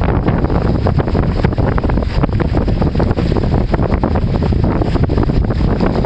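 Wind buffeting the microphone over the rush and splash of water along the outrigger float of a small sailing trimaran under way, with a steady, loud, gusty noise.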